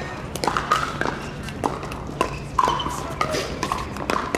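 Pickleball paddles striking a hard plastic ball in a fast doubles rally: about ten sharp pops with a short hollow ring, coming at uneven intervals.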